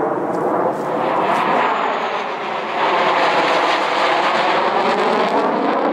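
Jet noise from US Marine Corps F/A-18C/D Hornets, twin-turbofan fighters, passing low overhead on arrival, with slowly sweeping bands of tone. It gets louder about three seconds in, as a Hornet comes over on landing approach with its gear down.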